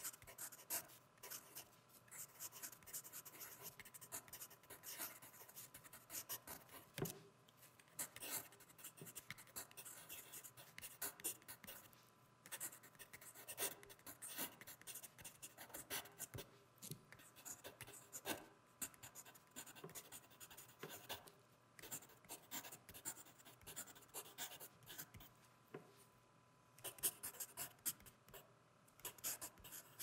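Faint writing on paper: quick, irregular scratching strokes of a pen or pencil tip, broken by a few short pauses.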